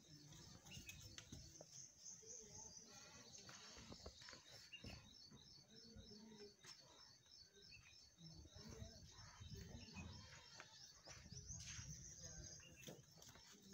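Near silence, with faint bird chirping in the background: a rapid, high, repeated chirp that runs through the middle few seconds.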